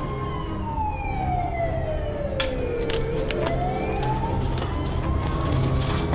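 Police siren wailing slowly, its pitch falling for about three seconds, rising again and starting to fall near the end, over a low steady drone. A few short sharp hits cut in during the second half.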